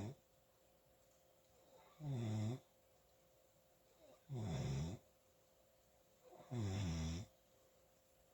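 A person snoring in sleep: three short, pitched snores, each about half a second long, come about two and a quarter seconds apart, and the tail of another is heard at the start.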